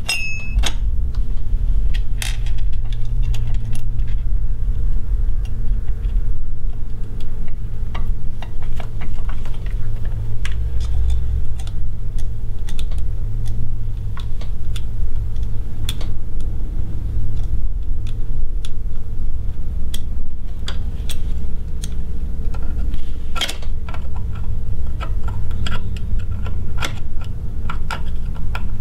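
Small metal clicks and clinks as an industrial sewing machine's cover plate is set back over the needle area and its screws are fitted and turned with a screwdriver. A steady low hum runs underneath and is the loudest part.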